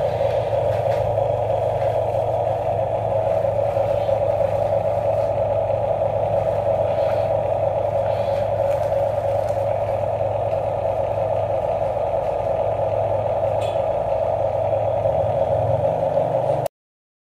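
Small electric gear motors of toy RC construction vehicles running with a steady whine, with a few faint clicks; the whine cuts off suddenly near the end.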